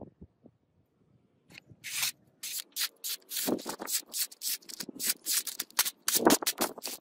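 A sharp knife slicing through a sheet of paper, testing the blade's edge: a quick run of rasping cuts and crackling paper, starting about a second and a half in and loudest near the end.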